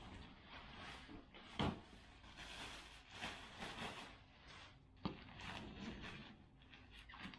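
Rustling of a fabric drawstring dust bag and plastic wrapping as they are handled around a suitcase, with two sharp knocks, about one and a half seconds in and about five seconds in.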